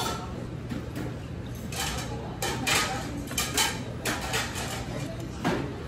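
Dishes and cutlery clinking: a handful of sharp clinks, most of them about two to four seconds in, over a steady low hum.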